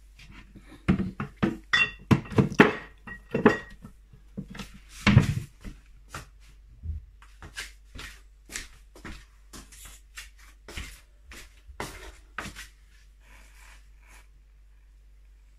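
Kitchenware being handled: a run of knocks and clinks, the loudest in the first five seconds with one brief ringing clink about two seconds in, then lighter taps that die out near the end.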